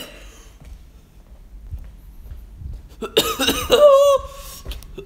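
A young man coughing and letting out a short, strained vocal cry about three seconds in, the voice holding one pitch briefly before it stops: a reaction to the burn of a very spicy chili.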